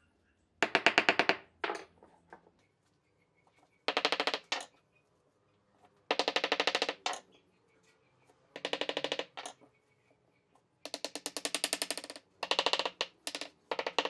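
Round pieces of cut log creaking and chattering against each other as they are pushed and twisted into a tight stack. It comes in about eight short bursts of rapid, evenly spaced clicks, each lasting about a second.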